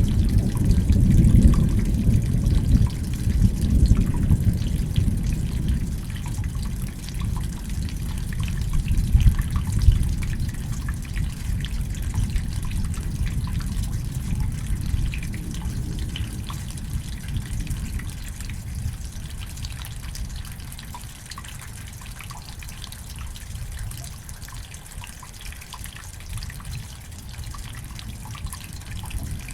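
Steady rain falling, with close drips, under a long low roll of thunder that is loudest at the start and dies away over the first two-thirds.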